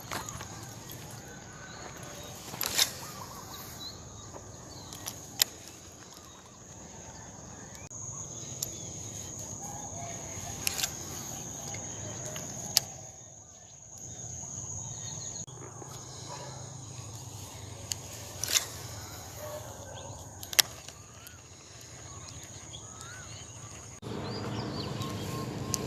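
Outdoor ambience: a steady high-pitched insect buzz with a few bird chirps and scattered sharp clicks or knocks, joined by a louder low hum near the end.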